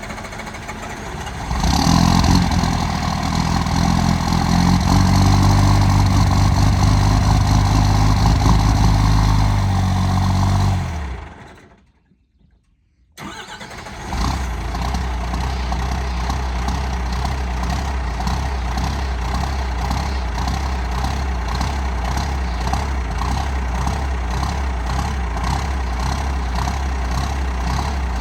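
12-valve Cummins diesel engine running loud and fast just after a hard cold start with no grid heater, then dying away about eleven seconds in. After a second or so of silence it cranks briefly, catches, and settles into a steady, evenly pulsing idle. The owner puts the hard starting down to an air leak at a bad overflow valve.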